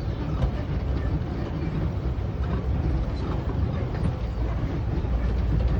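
Safari tour vehicle driving, a steady low rumble with light rattling.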